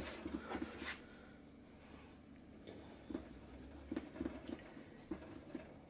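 Faint rubbing of a cloth working wax dubbin into a leather boot, in short scuffing strokes with small knocks. The strokes cluster in the first second and again from about three to five seconds in, quieter between.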